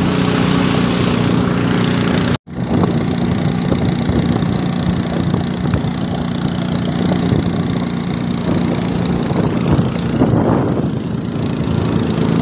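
Small engine of a wooden river longboat running steadily under way. The sound drops out for a moment about two and a half seconds in.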